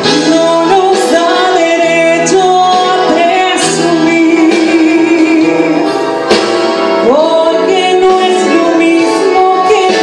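A woman singing into a microphone over instrumental accompaniment, holding long notes, with a rising held note about seven seconds in.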